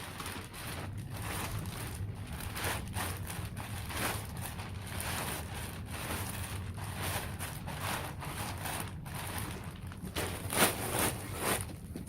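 Irregular crunching and scraping with scattered knocks, and a louder cluster of knocks about ten and a half to eleven and a half seconds in.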